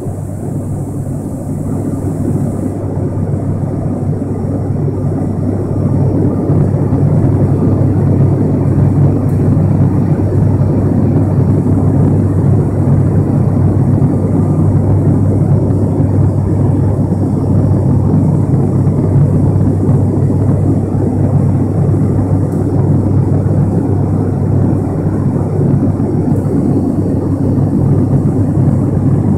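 Cabin noise of an ATR 72-500 turboprop in flight, heard from a window seat beside its Pratt & Whitney PW127 engine and six-bladed propeller: a steady low hum under a broad rushing noise, growing a little louder over the first several seconds.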